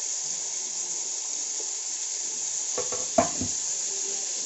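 Onions and tomatoes sizzling in hot oil in an aluminium pot, a steady hiss. About three seconds in, a short clatter of metal ends in one sharp, ringing clink.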